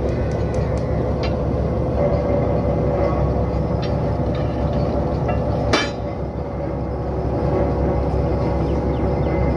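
Borewell drilling rig's engine running steadily, with scattered metal clinks from the steel drill pipe and fittings and one sharp metallic knock a little under six seconds in.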